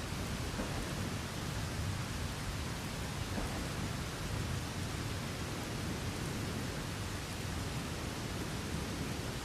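Steady rain falling, with low thunder rumbling underneath.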